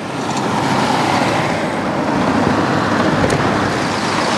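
Steady road traffic noise from congested traffic: cars, vans and a minibus engine running as they creep along. A brief click sounds about three seconds in.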